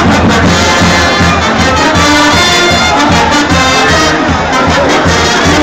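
Brass band playing, with held notes, over the noise of a dense, loud crowd.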